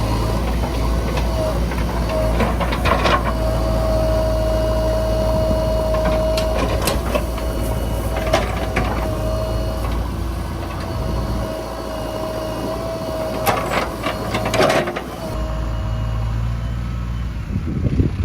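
JCB 3DX backhoe loader's diesel engine running steadily under load, with a held whine over the rumble and several sharp metal clanks from the working bucket.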